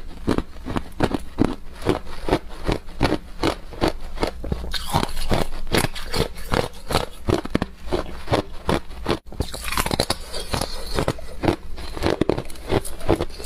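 A person biting and chewing thin shards of clear ice: a steady run of crisp crunches, about three a second.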